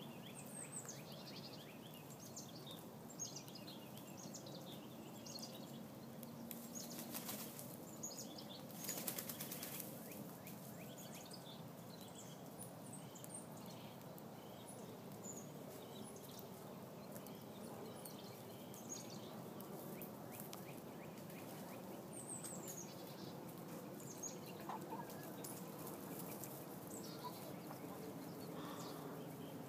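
Small birds chirping now and then, short high calls that fall in pitch, over quiet outdoor background noise, with two brief rustling noises around seven and nine seconds in.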